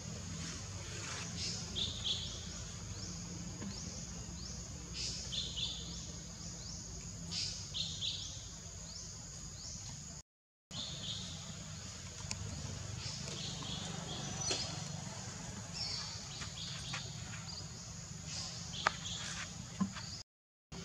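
Forest ambience: birds chirping in short repeated calls over a steady high insect drone and a low hum, with a few sharp clicks in the second half. The sound cuts out for a moment twice.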